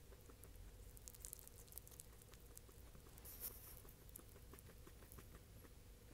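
Faint, close-up sound of a guinea pig chewing and mashing soft banana: many small irregular wet clicks and lip smacks, with one louder smack about three and a half seconds in.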